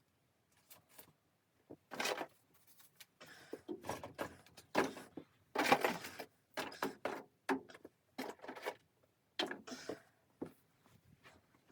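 Irregular rustling and scraping broken by sharp knocks: the sound of things being handled.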